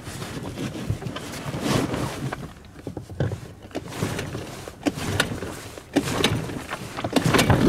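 Small outboard motor being pull-started from cold after long disuse: repeated pulls of the starter cord with knocks and rattles, and the engine catches right at the very end.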